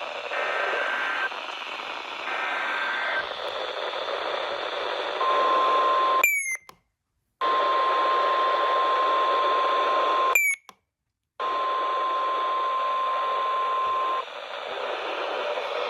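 NOAA Weather Radio over background hiss. In the first three seconds, buzzing digital header bursts alternate with a steady tone. Then the single steady 1050 Hz warning alarm tone sounds for about nine seconds, with two short silent dropouts, which marks the start of a new warning broadcast.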